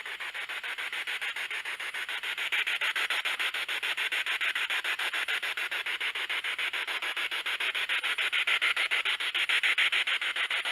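Spirit box sweeping through radio stations: static chopped into even pulses, about ten a second, with no station or voice coming through clearly.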